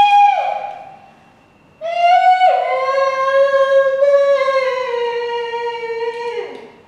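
A woman's voice singing long, wordless held notes. A first note drops a step and fades within the first second; after a short pause a second, longer note starts about two seconds in, drops a step, holds while sinking slowly, and falls away near the end.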